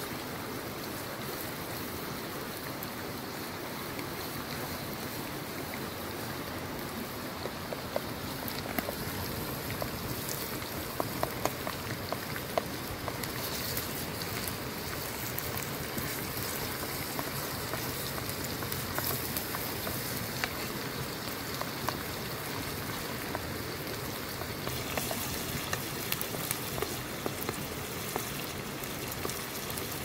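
Minced meat and chopped onion sizzling in oil in a metal frying pan over a wood fire, with scattered small pops and crackles.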